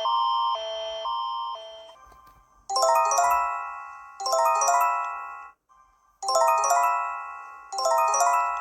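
An electronic emergency-alert attention chime: a quick rising run of bell-like notes that rings out, played four times in a row. Before it, in the first second and a half, the tail of a different alert tone alternates between two pitched chords about twice a second and then fades.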